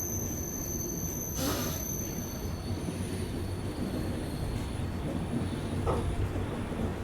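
Passenger express train running along the track, a steady low rumble of wheels and coaches, with a brief hissing burst about a second and a half in.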